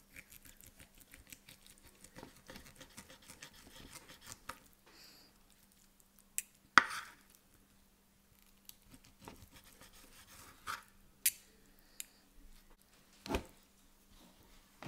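Steak knife and fork sawing through a grilled beef rib steak on a wooden board: a run of small scraping clicks, then a few sharper clicks and knocks of cutlery, the loudest about seven seconds in.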